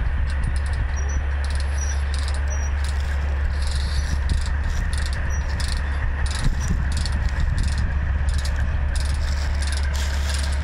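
Heavy diesel engine idling with a steady low rumble, under repeated short metallic clinks and rattles.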